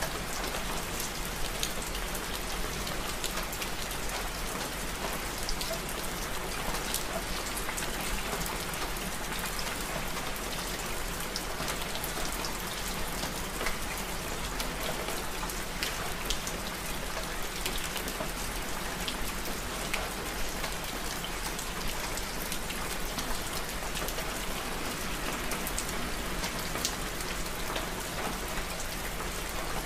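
Steady rain: an even hiss with many small, sharp drop ticks scattered through it, unchanging throughout.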